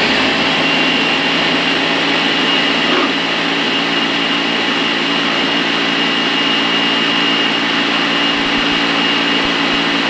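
Countertop blender running steadily with a high whine, blending paper and water into papermaking pulp. The blend is kept short to leave the pulp chunky.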